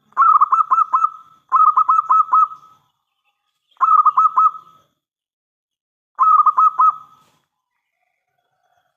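Zebra dove (perkutut) cooing: four short phrases of quick, rolling coo notes, the first two nearly back to back, then two more after pauses of about a second.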